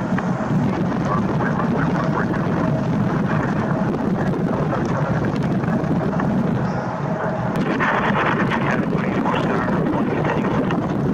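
Wind buffeting the camera's microphone in a 10 gusting 20 knot wind, a steady low rumble, with a higher hiss joining about eight seconds in.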